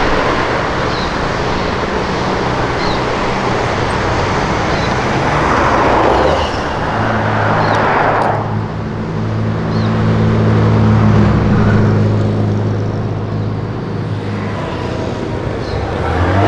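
Passing street traffic, with a louder swell of tyre and engine noise about six seconds in. From about seven seconds a classic Ford Maverick's engine runs past with a deep, steady note that fades after about fourteen seconds.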